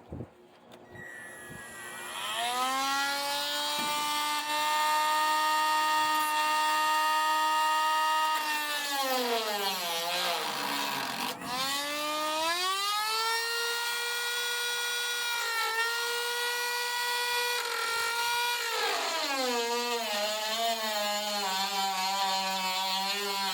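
Power tool spinning a wire wheel to strip rust from steel: its motor whines up to speed, then its pitch sags sharply about ten seconds in and again near the end as it slows under load.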